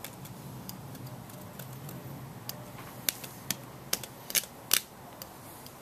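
Irregular sharp clicks and taps as the small plastic parts of a windscreen chip repair kit are handled while filling a pit with resin, with a cluster of louder clicks about three to five seconds in, over a faint steady low hum.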